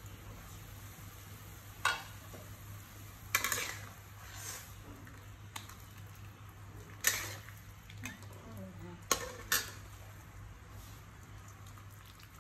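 Kitchenware handled at a wok: about five sharp clinks and knocks of a metal spatula and a glass pot lid against the metal pan, with scraping and light rustling as boiled instant noodles are lifted out into a plastic colander.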